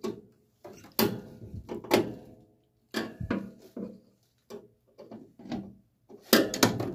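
Irregular knocks, taps and scrapes of a hand working inside a gas furnace's sheet-metal burner compartment, fingers starting the screw that holds a replacement flame sensor in place and brushing the wiring. The strokes come about a second apart, with a quicker cluster near the end.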